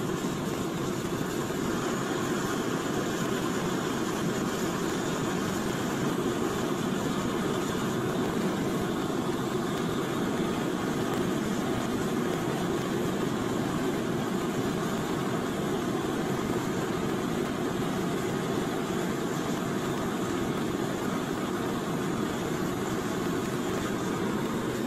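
Gas blowtorch flame burning steadily into a small crucible, melting scrap aluminium for casting.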